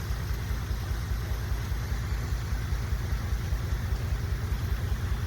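Vehicle engine running at steady low revs, a fast, even low throb.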